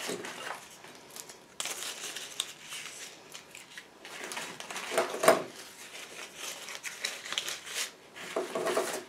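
Sprigs of leafy greenery rustling and crinkling as they are handled and arranged around a stick, with irregular small crackles and a sharper, louder crackle about five seconds in.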